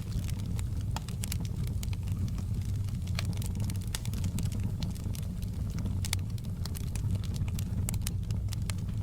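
Open log fire burning in a fireplace: frequent sharp crackles and pops, irregularly spaced, over a steady low rumble of the flames.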